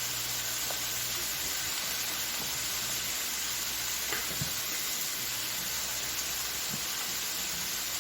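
Spinach and broccoli sizzling steadily in an oiled pan on the stove, with a faint knock about four seconds in.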